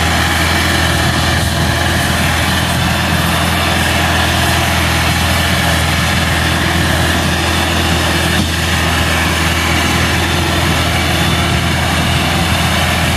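Massey Ferguson 375 tractor's four-cylinder diesel engine running steadily under heavy load, pulling a heavily loaded sugarcane trolley hard enough that the front wheels lift.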